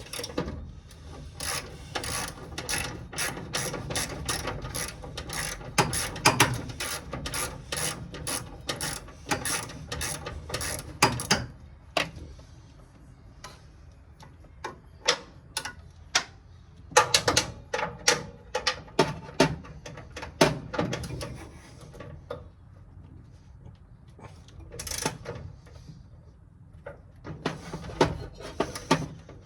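Socket ratchet wrench clicking in runs of quick strokes, with pauses between runs, as the half-inch bolts holding the radiator to its support are loosened.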